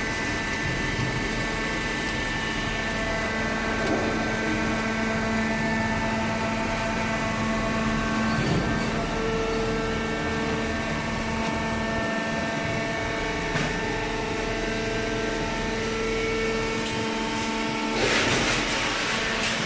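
Hydraulic cardboard baler running: a steady machine hum with several held tones that shift as it works, and a louder rush of noise near the end.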